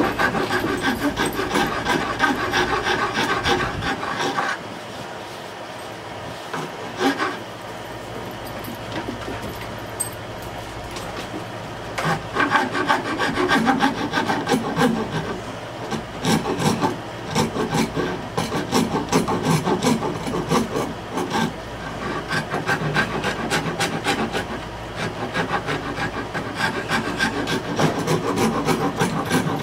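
Hand rasp filing the wooden handle of an oak strop paddle in quick back-and-forth scraping strokes. The strokes thin out to a few about four seconds in, then pick up again about twelve seconds in and carry on with short breaks.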